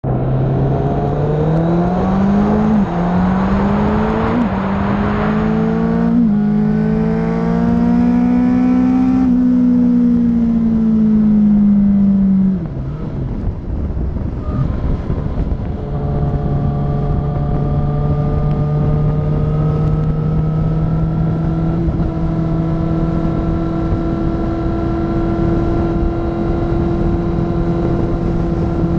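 A vehicle's engine accelerating hard through the gears, its pitch climbing with three quick upshifts in the first six seconds and then pulling higher to highway speed, with wind rushing throughout. About twelve seconds in, the engine note drops away, and it then runs steadily at cruising speed.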